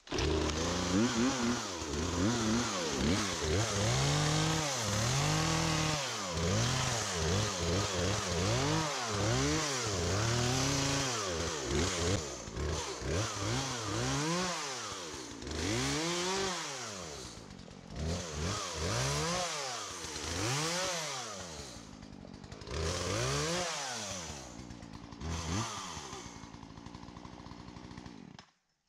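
Cordless electric chainsaw trimming brush, its motor whine repeatedly spun up and let wind down every second or two. The sound cuts off abruptly near the end.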